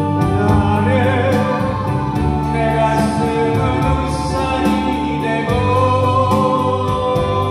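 A man singing into a handheld microphone, his amplified voice holding long notes over instrumental accompaniment with a steady beat.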